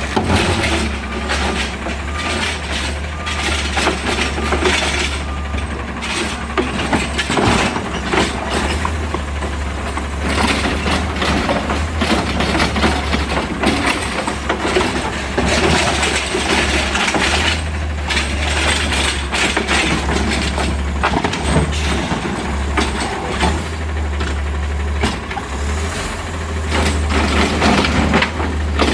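Autocar garbage truck's natural-gas engine idling steadily, with irregular clattering and knocks over it.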